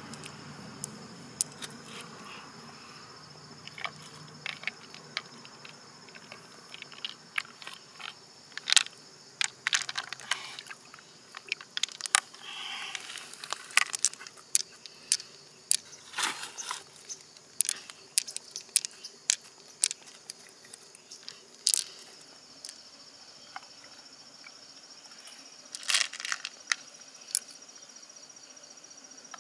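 Irregular sharp clicks and taps of pearls and shell being handled: pearls knocking against each other and the inside of a large freshwater mussel shell as they are picked out. A steady high insect drone runs underneath.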